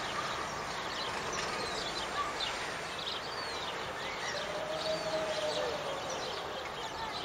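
Steady outdoor background noise with faint bird calls: scattered short chirps and one longer, lower call about four and a half seconds in.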